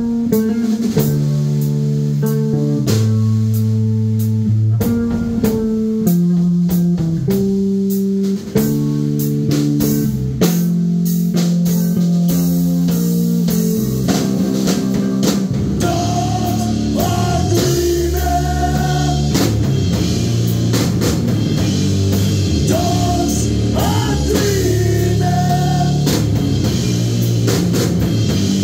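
Live rock band with electric bass guitar and drum kit playing. A melodic bass line of sustained notes runs over the drums, and about halfway through the playing turns denser and heavier.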